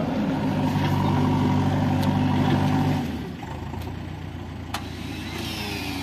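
Heavy diesel engine running steadily, its note dropping sharply in loudness about three seconds in and carrying on at a lower level. A single sharp click comes near the end.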